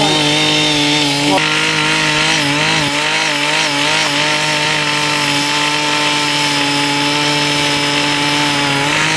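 Small petrol engine of a mini rotary tiller running at high speed under load, its pitch wavering slightly as the tines dig through hard, uncultivated soil.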